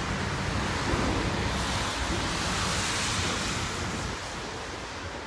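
Wind buffeting the microphone: a steady gusty rumble under a rushing hiss that swells and fades in the middle.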